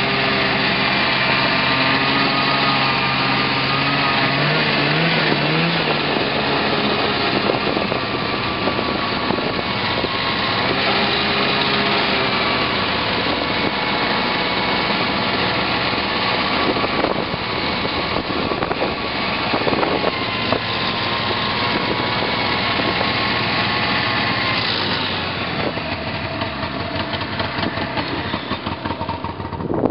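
Snowmobile engine running under way, a steady drone whose pitch rises and falls briefly a few times with the throttle, and which eases slightly near the end.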